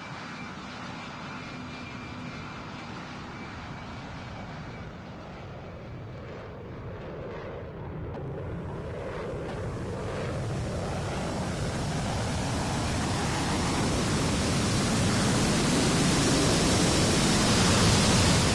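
Airplane engine noise growing steadily louder through the second half as the aircraft draws closer, the sound getting brighter and more hissing as it builds.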